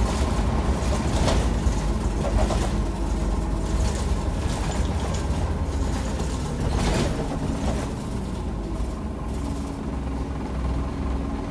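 Cabin sound of a Scania Omnicity city bus under way: a steady low engine and road rumble with a few sharp interior rattles and clicks. The rumble eases slightly in the last few seconds.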